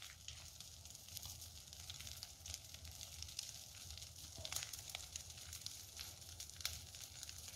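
Large bonfire of dry brush and branches burning: faint steady crackling and hissing with scattered sharp pops.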